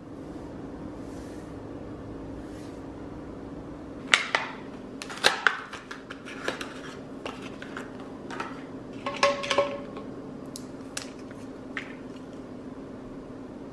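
Stiff plastic blister packaging of an adhesive wall hook being handled and pulled open: a run of sharp crinkles and clicks starting about four seconds in, with a brief squeak near the middle, over a steady low hum.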